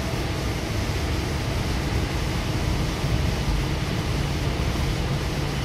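Goninan K-set double-deck electric train running at speed, heard inside the passenger car: a steady low rumble with an even hiss over it.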